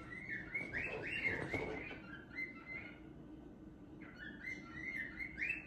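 Young male cockatiel whistling a rhythmic string of short notes, about three a second. The string breaks off about halfway through and starts again about a second later.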